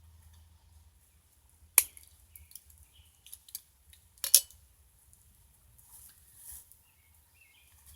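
Two sharp snaps about two and a half seconds apart, with a few light ticks between: small copper nails being clipped shorter with cutters.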